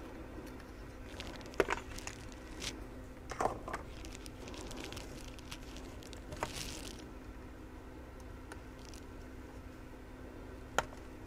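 Hands handling a power-supply circuit board and its wires inside a metal case: scattered small clicks, knocks and rustles, with a brief hiss about six and a half seconds in, over a faint steady hum.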